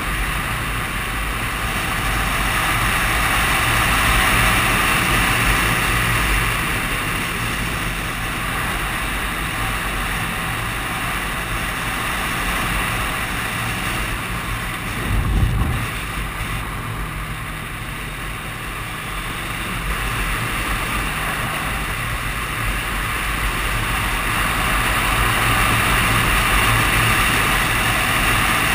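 Suzuki Katana 750's inline-four engine running while riding, under steady wind rush over the helmet-mounted microphone, with a brief low thump about halfway through.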